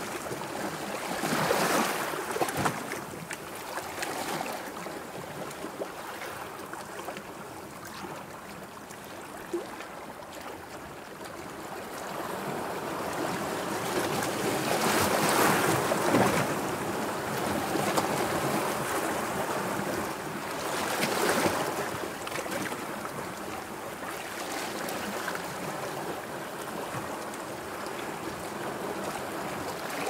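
Sea waves: a steady rush of surf that swells louder a few times, loudest about halfway through.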